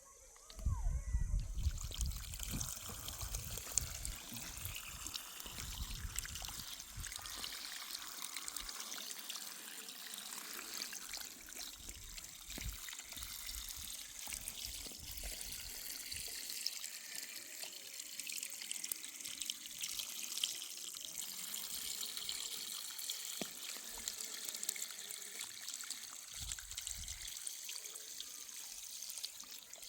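Water running and splashing steadily, starting suddenly about a second in, with low rumbling bumps during the first several seconds.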